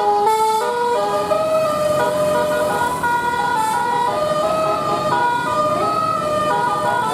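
Bus 'telolet basuri' musical air horn playing a melody: a run of held horn notes stepping up and down in pitch, over the rumble of the bus.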